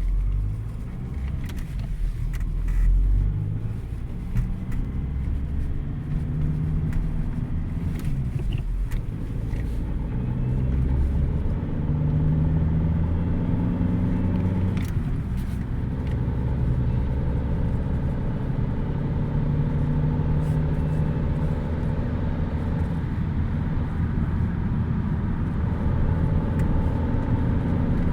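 Volkswagen Passat B6 engine revved up and down several times with the accelerator, carrying a strange noise that comes on when the pedal is pressed.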